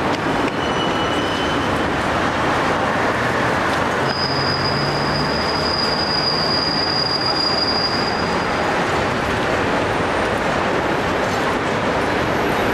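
Hong Kong double-deck electric tram running along street tracks, its steel wheels giving a high squeal held for about four seconds from about four seconds in, over steady street traffic noise.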